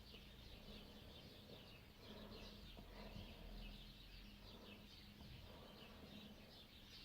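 Near silence, with faint, quick, high chirping of small birds going on throughout, over a faint low hum.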